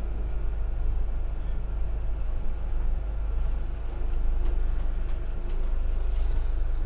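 Steady low rumble of a sailing trimaran under way, heard from inside its cabin, with a few faint steady tones over it.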